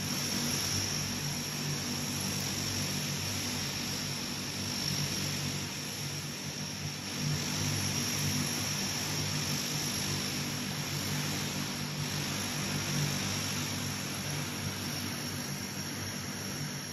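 Four Allison turboprop engines of a Lockheed L-188 Electra airtanker running on the ground, propellers turning, while its retardant tank is reloaded with the engines left running. A steady drone with a constant high turbine whine over it.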